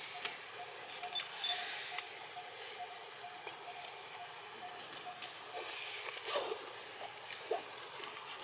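Outdoor ambience: a steady high insect hiss with a faint call repeating about three times a second, a few sharp clicks in the first half, and brief faint squeaks later on.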